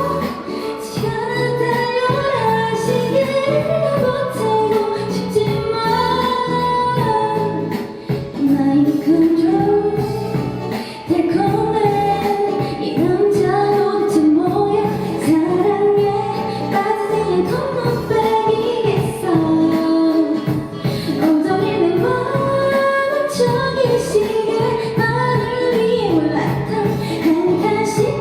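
A woman singing a Korean pop song with instrumental accompaniment, as live street busking.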